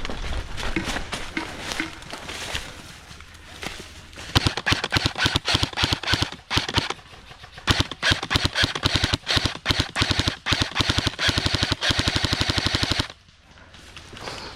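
Airsoft guns firing: scattered shots at first, then rapid bursts from about four seconds in, ending in a long, even, fast string that cuts off suddenly.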